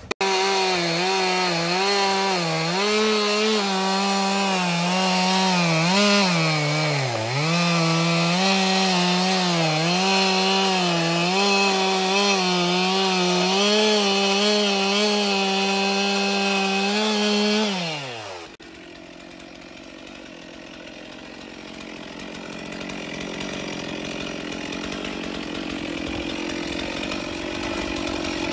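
Stihl two-stroke chainsaw running at high revs in a cut through a thick tree trunk, its pitch dipping several times as it bogs in the wood. About eighteen seconds in the revs fall away and the engine note cuts off, leaving a quieter rough noise that grows slowly louder toward the end.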